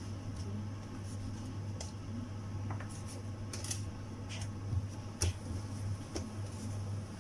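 Plastic dough scraper chopping through a log of bread dough, with sharp taps each time it strikes the countertop, at irregular intervals about once a second, and soft handling of the dough between cuts. A steady low hum runs underneath.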